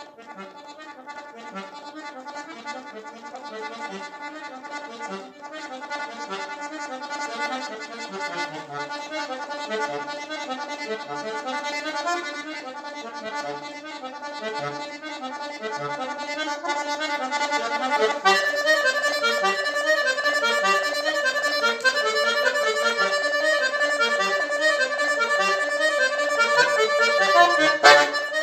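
Solo button accordion playing, with a melody over bass notes that repeat about once a second. It starts fairly quietly, grows louder, and steps up to full volume about two-thirds of the way through.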